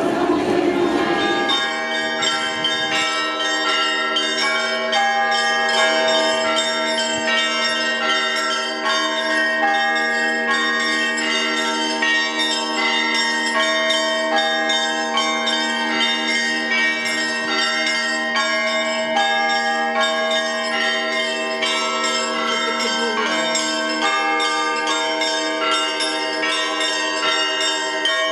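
Orthodox church bells pealing: several bells are struck in a quick, continuous pattern over a long sustained low hum, taking over from crowd noise about a second in.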